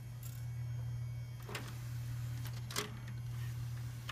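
3.5-inch floppy drive in a Gateway E4200 desktop making several short mechanical seek noises at startup, the loudest nearly three seconds in, over the computer's steady low hum. This is the startup issue that the owner takes for a sign the drive is dying.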